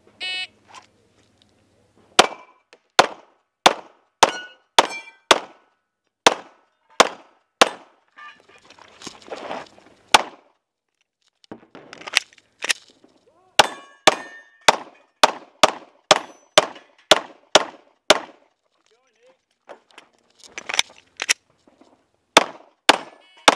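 A shot-timer start beep, then strings of airsoft pistol shots at steel targets: sharp cracks coming about every half second to second, many followed by the metallic ding of a BB striking a steel plate. The shooting breaks off twice, once for a stretch of shuffling noise while moving between shooting positions.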